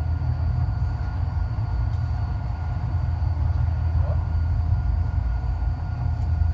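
Passenger train running at steady speed, heard from inside the cabin: an even low rumble of wheels on track with a few steady whining tones above it.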